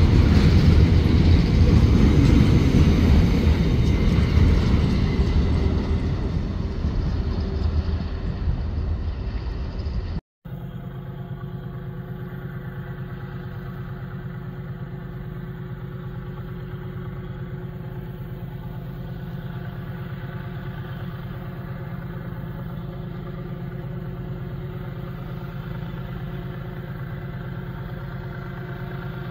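Freight train of grain hopper cars rolling past close by, loud at first and fading as the last cars go by. After a cut about ten seconds in, a steady low hum of a diesel locomotive heard from far off as it approaches.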